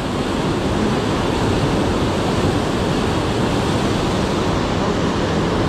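Steady rush of a river running high, an even roar of water with no break.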